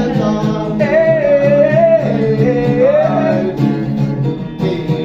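Gospel praise music: a sung melody line over a steady instrumental backing, with the voice strongest in the first half and fading back toward the end.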